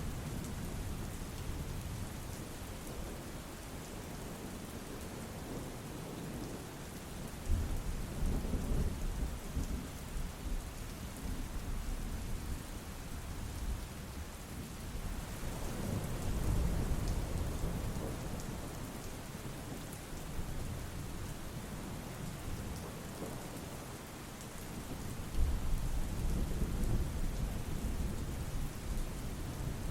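Steady rain falling, with thunder rumbling low three times: about a quarter of the way in, around the middle, and again near the end.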